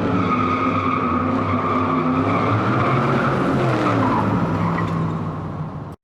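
Car engine running hard with a sustained tire squeal, as in a skid; it cuts off suddenly near the end.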